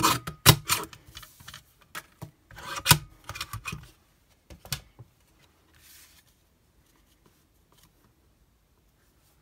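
Small sliding-blade paper trimmer cutting cardstock: a few sharp clicks and knocks as the card and blade are set, a short rasp of the blade drawn through the card about three seconds in, then a last click and quiet paper handling.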